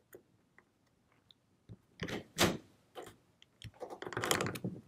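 Steel parts of a Type 14 Nambu pistol clicking and clacking under the hands as its trigger guard assembly is forced loose from the frame. A few faint clicks, then a sharp clack about two seconds in and another a second later. Near the end comes a longer scraping rattle as the assembly slides down.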